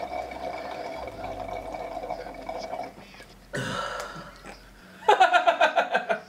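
Loud sucking through a drinking straw with a steady wet gurgle, which stops about three seconds in. A short noisy rush follows, then a long, loud, pulsing burp near the end.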